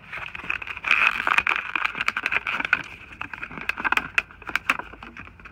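Rustling and many sharp plastic clicks as the replacement light control module, the turn-signal flasher, is handled and readied for fitting.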